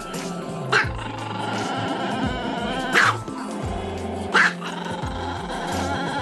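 A small black-and-tan Chihuahua barks three times, single short, sharp barks about a second or two apart, over background music.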